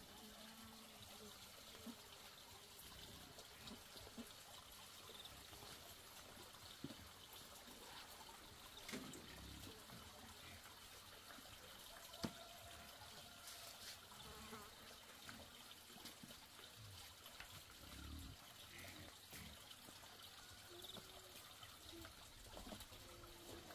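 Near silence: faint outdoor background hiss, with a few small, soft clicks and one sharper click about twelve seconds in.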